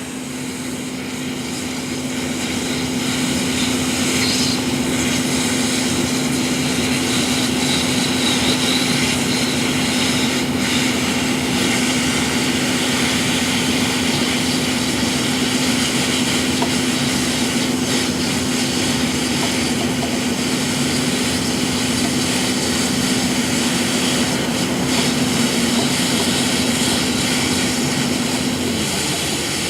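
Nitrogen hot-gas plastic welder running while welding polypropylene: a steady rush of gas with a low steady hum that stops shortly before the end.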